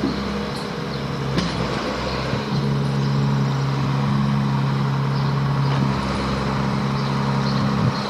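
A vehicle engine idling with a steady hum, and a sharp click about a second and a half in.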